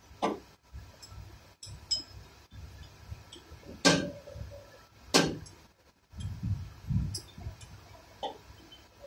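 Sharp metallic clinks as the front differential is worked on while it rests on a transmission jack's plate: a small one just after the start and two louder ones about four and five seconds in, with dull low knocks a second or so later.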